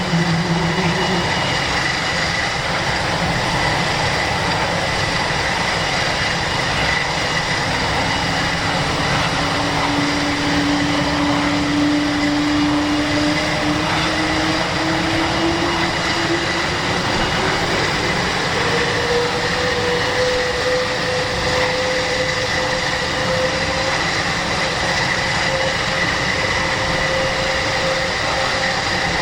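Airbus A400M's four Europrop TP400 turboprop engines running, a steady loud drone with a high whine over it. About two-thirds of the way through, a lower tone in the engine note rises in pitch, as an engine speeds up.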